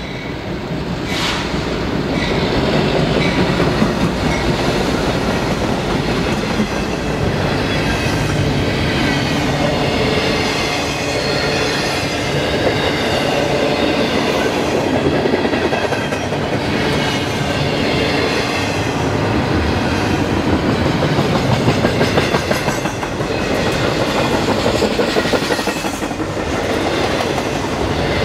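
Double-stack intermodal freight train passing close by: the diesel locomotive draws near and grows louder over the first few seconds, then the container well cars roll past with a steady rumble of steel wheels on rail and a high ringing from the wheels.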